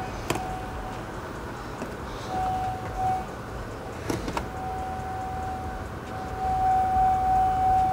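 A steady single-pitch whine, broken at first and continuous from about halfway, with two sharp clicks.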